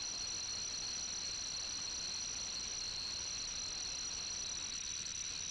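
A steady high-pitched ringing, two held tones over a faint hiss.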